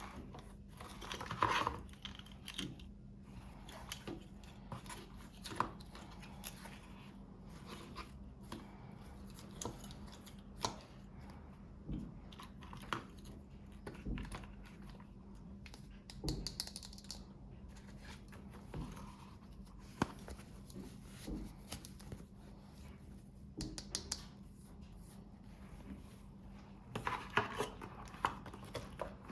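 Close-up handling of small toy packaging: scattered light clicks and taps with short bursts of crinkling or tearing, the busiest about a second in and near the end.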